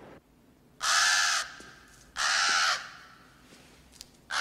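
A tame crow cawing three times, each caw about half a second long and roughly a second and a half apart, the third starting near the end.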